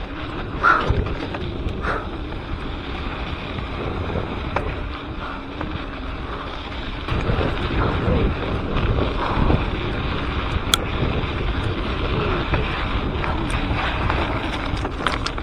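Mountain bike riding a dirt singletrack: wind buffeting an action camera's microphone over the rumble of knobby tyres on dirt, with a few sharp clicks and rattles from the bike.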